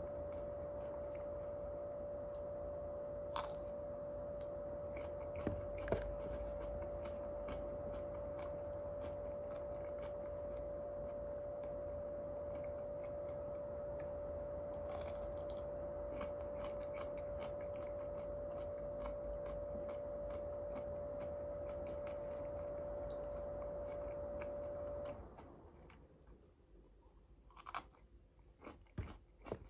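Raw okra pods being bitten and chewed, with scattered crisp crunches. A steady hum runs underneath and cuts off about 25 seconds in, leaving the bites and chewing clearer near the end.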